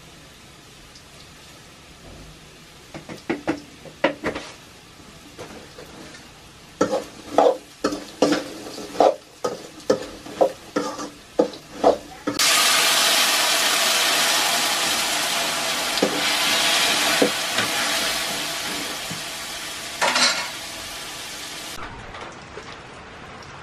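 Metal ladle knocking and scraping against an aluminium kadhai as paneer curry is stirred, with sharp strikes about every half second. About halfway through, a loud steady sizzle of frying starts suddenly and cuts off abruptly near the end.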